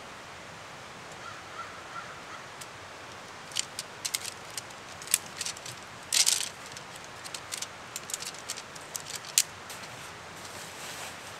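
Camping tent being packed up by hand: nylon rustling and a run of short, sharp clicks and clacks from the tent parts being handled. The loudest rustle comes about six seconds in, over a steady background hiss.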